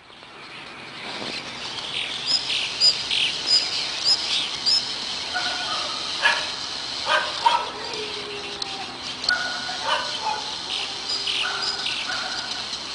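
Birds chirping: a run of short, high, repeated chirps a couple of seconds in, then other short calls in the middle and again near the end, over a steady hiss.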